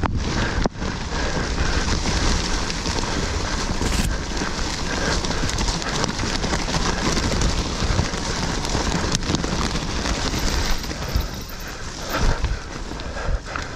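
Mountain bike ridden fast down a loose woodland dirt trail: tyres rolling over dirt and leaf litter and the bike rattling and knocking over bumps, under a steady rush of wind noise on the microphone.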